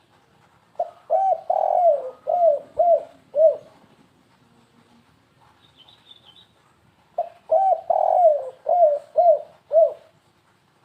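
Spotted dove (tekukur) cooing in the stuttering 'kuk three' pattern used as a lure call: two song phrases about six seconds apart, each a quick run of short arched coos with one longer drawn-out note near its start.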